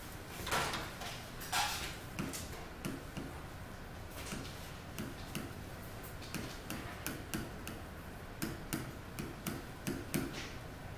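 Pen tip tapping and clicking against a touchscreen display while writing, heard as a run of short, irregular clicks. Two brief rustling swishes come first, near the start.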